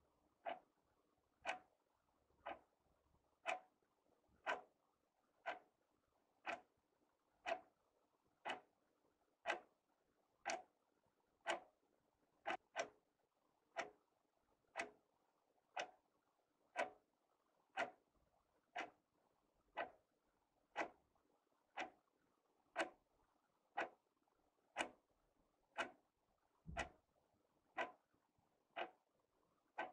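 Wall clock ticking steadily, one sharp tick about every second in step with the second hand. One tick is doubled partway through, and a low thump sits under a tick near the end.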